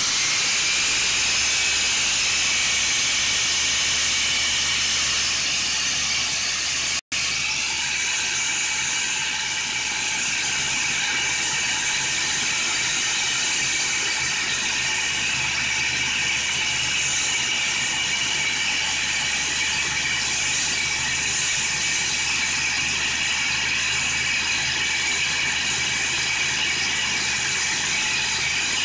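A homemade belt sander driven by a 4-inch angle grinder running steadily: a high motor whine over the hiss of the sanding belt running over its rollers. It cuts out for an instant about seven seconds in.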